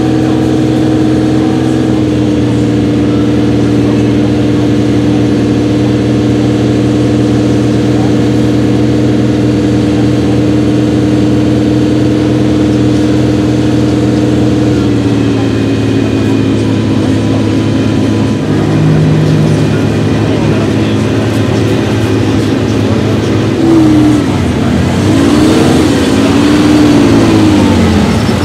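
Ferrari 365 GTB/4 Daytona's 4.4-litre V12 idling steadily, then revving up and down several times near the end.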